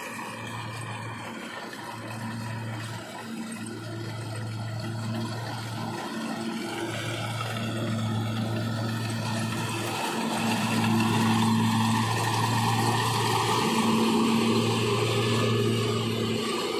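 Kubota combine harvester running while it cuts rice: a steady engine hum with the whir of the cutting and threshing machinery, growing louder as the machine comes close.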